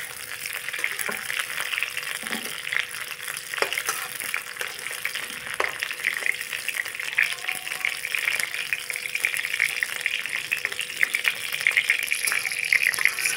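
Cauliflower florets sizzling in hot oil in a kadhai, a steady crackle, while a steel spatula scrapes them out of the pan. A few sharp knocks of the spatula against the pan come in the first few seconds.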